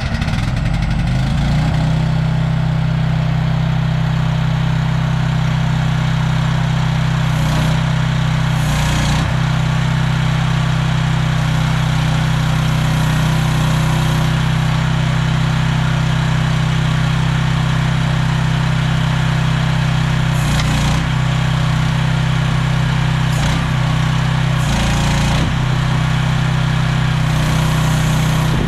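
Engine of a CFG Industrial QK16R mini excavator running steadily, with a few brief surges in the noise.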